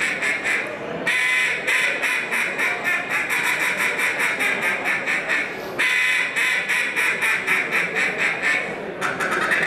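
Duck call blown by a contest caller in a fast run of short repeated quacking notes, several a second, broken by short pauses about a second in, near six seconds and about nine seconds in.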